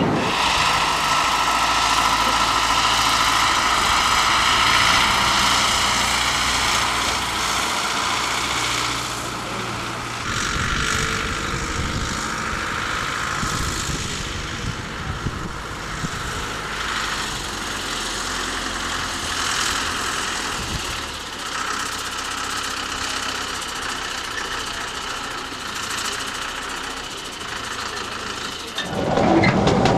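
Diesel engine of a small narrow-gauge train locomotive idling steadily, with a low, even hum.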